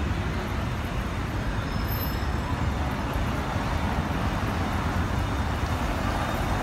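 Steady city traffic: cars driving past on a cobblestone avenue, with engine and tyre noise on the cobbles.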